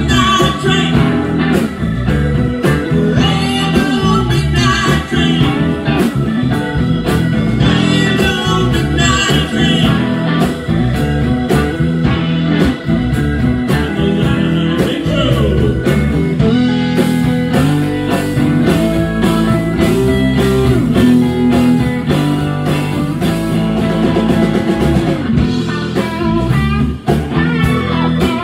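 Live blues band playing an instrumental break: electric guitars over bass, drums and keyboard, with steady, continuous music.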